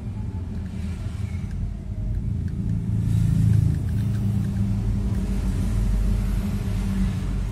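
A steady low background rumble that swells a little about three seconds in, with a few faint small clicks.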